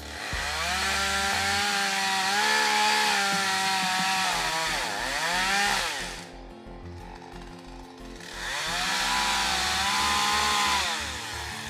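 Chainsaw at full throttle in two long bursts, its pitch dipping and sagging under load as it cuts, dropping back to idle for about two seconds between them: cutting into a hung-up tree.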